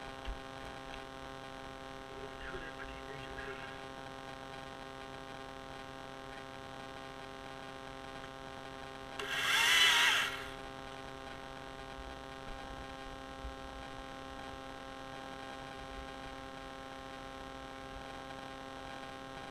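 A chainsaw runs in one short burst of about a second and a half, about nine seconds in, over a steady hum.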